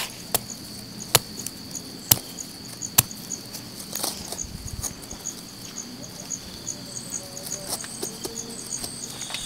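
Rainforest insects: a steady high-pitched drone with evenly repeating cricket chirps over it. Four sharp knocks come about a second apart in the first three seconds.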